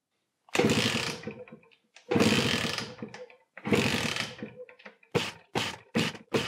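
Beta Evo 125 two-stroke engine being kicked over with a compression gauge in the plug hole for a compression test. Three long turning-over sounds, each fading away, then a quick run of short regular strokes, about two or three a second.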